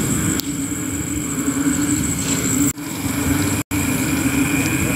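Steady background hum over a noisy wash, with a constant low tone; the sound cuts out briefly twice near the middle.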